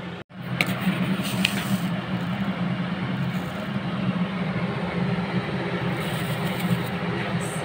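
Induction cooktop's cooling fan running with a steady low whirring hum.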